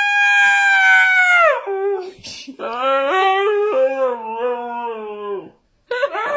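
A dog howling in long drawn-out calls: a high howl that falls away after about a second and a half, then a lower, wavering howl lasting about three seconds, and another howl starting near the end after a brief silence.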